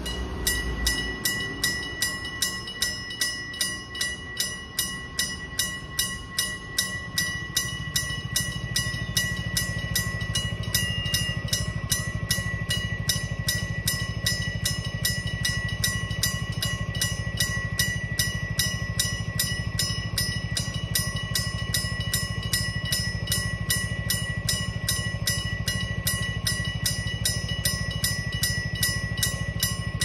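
Electric-bell (電鈴式) level-crossing warning bell ringing continuously, a rapid repeated metallic clanging with a ringing tone held between the strokes. A low steady rumble builds in underneath about eight seconds in.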